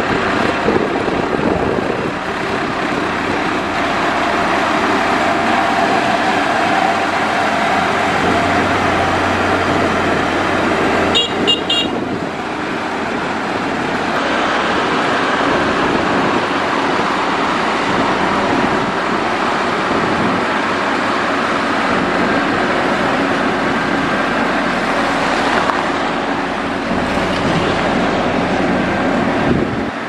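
Heavy dump truck's diesel engine running steadily as the truck reverses and then raises its bed to tip its load. A brief run of short, high-pitched beeps sounds about eleven seconds in.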